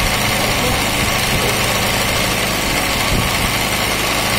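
Embroidery sewing machine running steadily, its needle stitching continuously as the hooped fabric is guided under it by hand.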